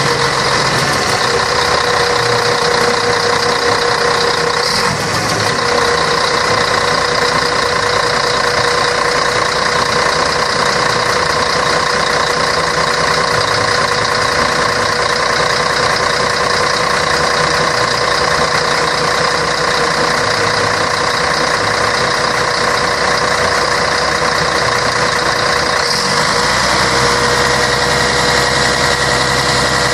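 Scania K113 bus's diesel engine running at a steady speed, with a constant whine above the engine note; the tone shifts slightly about five seconds in and again near the end.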